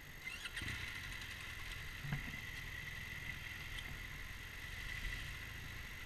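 BMW R1200GSA's boxer-twin engine running at a steady idle, with stream water rushing over rocks and around the front wheel.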